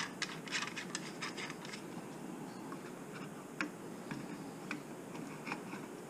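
Small plastic clicks and taps from hands handling a compact LED video light and fitting it to a cold shoe mount: a quick run of clicks in the first two seconds, then a few single clicks spread apart.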